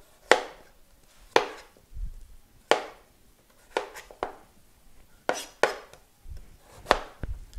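Kitchen knife chopping chayote on a plastic cutting board: about nine sharp, unevenly spaced knocks of the blade hitting the board, roughly one a second.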